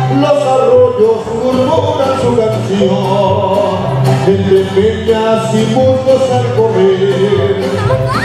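Music with singing and a bass line that steps from note to note.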